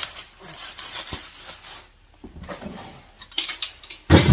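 Unpacking a steel barbed-wire unroller frame from its box: plastic wrapping and cardboard rustle, and metal parts clink. A loud knock comes near the end.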